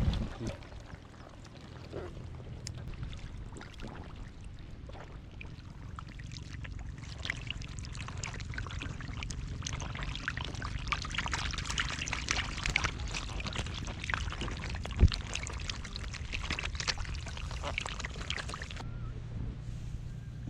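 Water splashing and trickling in a run of small crackling splashes, strongest through the middle and later part, over a steady low hum.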